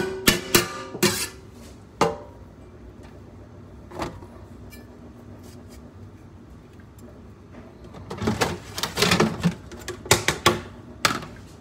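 Kitchen knife clicking and scraping against a halved cucumber as its seeds are scraped out: a few sharp clicks in the first seconds, another at about four seconds, then a cluster of scraping and knocks near the end.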